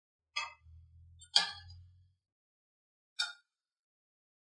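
Cooking utensil clinking against a metal pot of frying dough three times, the middle strike the loudest.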